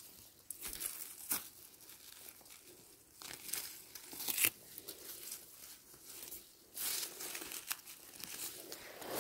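Dry forest-floor vegetation rustling and crackling in irregular bursts, with a few short, sharp snaps, as someone moves through it while gathering mushrooms.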